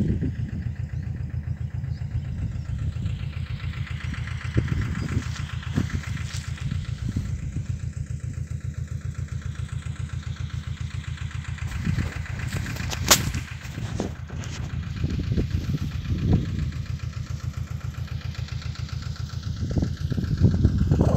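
Powertrac 425 N tractor's diesel engine running steadily with an even low pulse, with one sharp click about 13 seconds in and the engine louder near the end.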